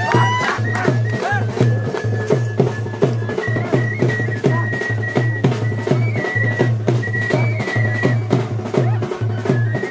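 Traditional Bhaderwahi wedding music: dhol drums beating a quick steady rhythm of about three strokes a second, with a high wind instrument holding long, slightly wavering notes above.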